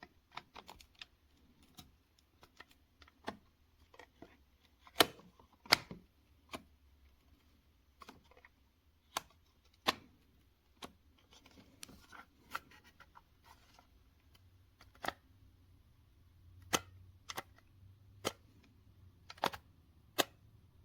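Irregular sharp clicks and light knocks, about one a second, with the loudest pair about five and six seconds in.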